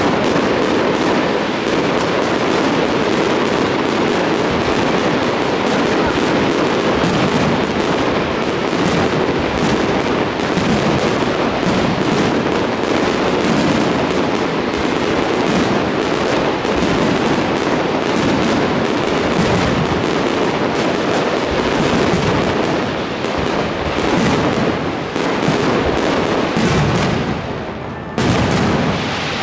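Dense, continuous fireworks barrage: rapid overlapping bangs and crackling with no pause, easing briefly near the end before another burst.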